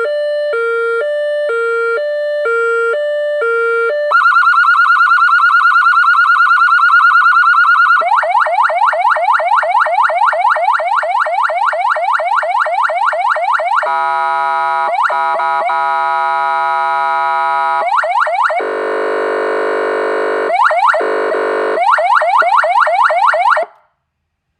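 AS920 electronic siren through a 200-watt slim horn speaker, stepping through its tones. It starts with a two-tone hi-lo alternating about twice a second, then a fast high warble, then rapid rising yelp sweeps, then buzzy horn blasts mixed with the sweeps. It cuts off suddenly near the end.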